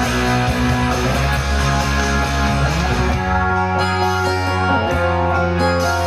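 Les Paul-style electric guitar playing a rock song over a backing track with a steady bass line and drums.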